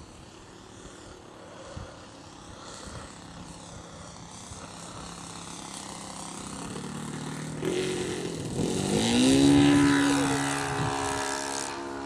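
Radio-controlled T-34 model airplane's engine and propeller on a low pass, growing steadily louder as it comes in. The engine note rises at about three quarters of the way through, then holds steady and loud as the plane climbs away.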